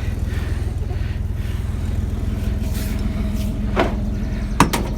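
Truck engine idling steadily with a low, even rumble. A couple of short knocks come near the end.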